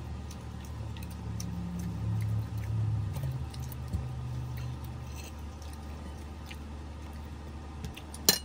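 People chewing at the table, with small scattered clicks, a low hum from about a second in to about five seconds, and one sharp click near the end.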